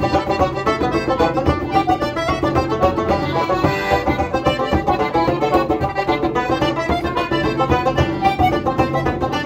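An Irish traditional dance tune played on a piano accordion and a banjo, with a bodhrán beating time.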